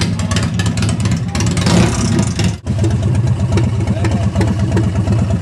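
Custom chopper motorcycle engine running at idle, loud and close, with a fast, even pulsing beat. The sound breaks off for an instant about two and a half seconds in and the engine carries on.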